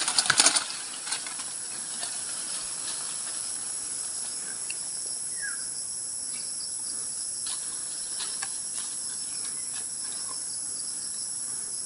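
Steady high-pitched chorus of insects shrilling, even and unbroken, with a few brief crackles near the start.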